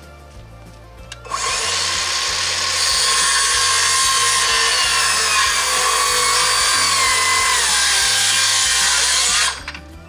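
Cordless circular saw cutting lengthwise along a wooden board. It starts about a second in, runs with a steady whine that sags a little in pitch under load late in the cut, and stops shortly before the end.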